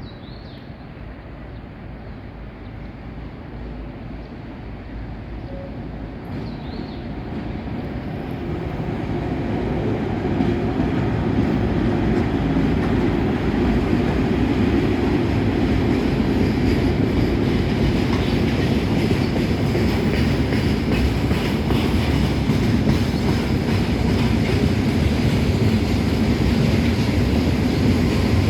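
Freight train approaching and passing: its rumble grows steadily louder over about ten seconds, then holds as a loud, steady run of rumbling and wheel clatter over the rails.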